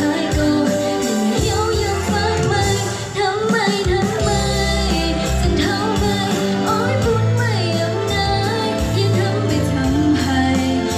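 A woman singing a Mien-language pop song live into a microphone, amplified through PA speakers, over electronic backing with sustained bass notes and a steady beat.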